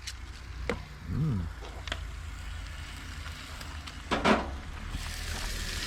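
Scattered clicks and knocks of camp cooking, with one louder knock about four seconds in; near the end a sizzling hiss of food frying in a pan starts up.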